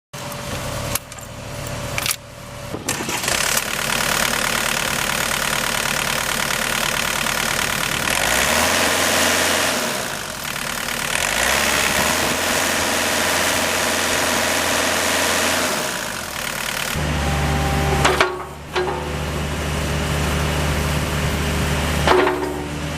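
Diesel engine of a John Deere 50D mini excavator starting up. It runs with a dense, noisy sound from about three to seventeen seconds in, then settles into a steady idle with two short knocks.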